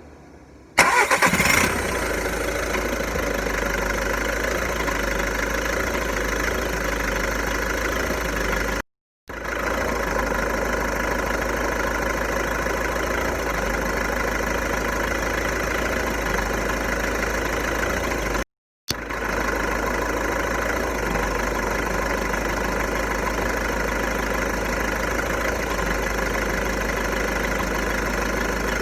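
VW Golf 1.6 TDI four-cylinder diesel engine cranking and catching about a second in, then idling steadily, with the sound cutting out briefly twice. The owner is asking whether the idle noise comes from a worn dual-mass flywheel.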